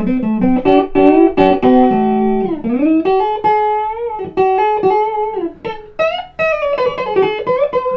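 Custom-shop SG electric guitar played through an amplifier: melodic single-note lead lines with held notes and string bends.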